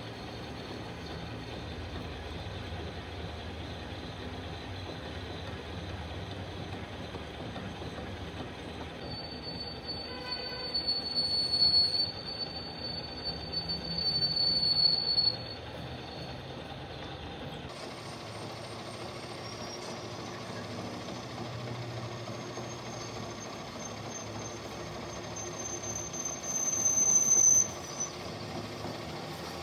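Metal being cut on a machine tool: a steady mechanical hum under a high, single-pitched squeal from the cutting tool. The squeal swells and cuts off sharply about halfway through, then returns a little higher in pitch and stops abruptly near the end.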